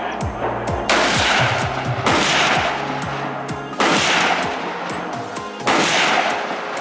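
Four single shots from a semi-automatic rifle, fired one to two seconds apart, each with a long decaying echo. Electronic background music plays underneath.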